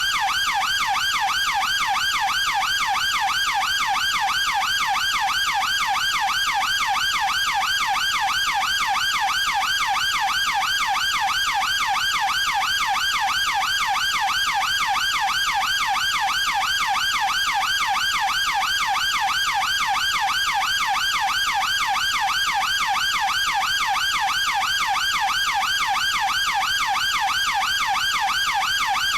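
UK police siren in its fast yelp mode: a tone sweeping rapidly up and down several times a second, steady and unbroken.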